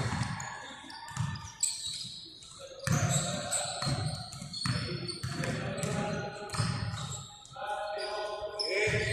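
A basketball being dribbled on a gym floor, a steady run of bounces, with sneakers squeaking on the court and voices in the background.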